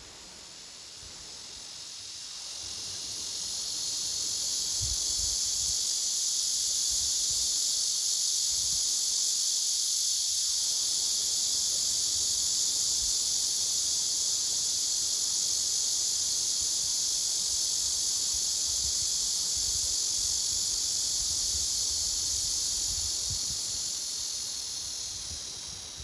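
Cicada song: a steady, high, hissing buzz that swells in over the first few seconds, holds, and fades away near the end.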